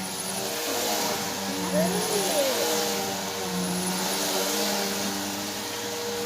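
A small motor running steadily: an even whirring hum with a rushing hiss.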